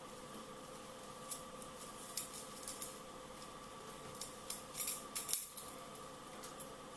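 Bonsai training wire being handled and wound around a young pine trunk: a string of light metallic scrapes and clicks, busiest about five seconds in.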